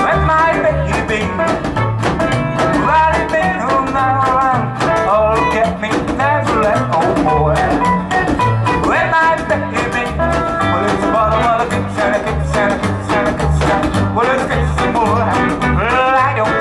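Live rockabilly band playing an instrumental break: an electric archtop guitar plays a lead line with bent notes over a walking upright double bass and strummed acoustic rhythm guitar, with a steady beat.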